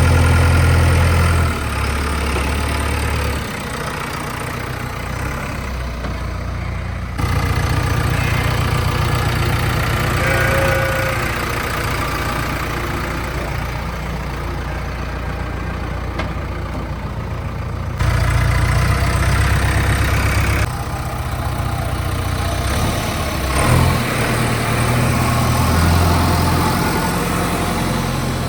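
JCB 3DX backhoe loader's diesel engine running, mostly at a steady idle-like pace, with its pitch and loudness changing abruptly a few times.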